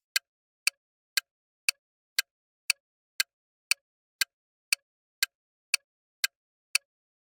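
Countdown-timer clock sound effect ticking steadily, about two ticks a second.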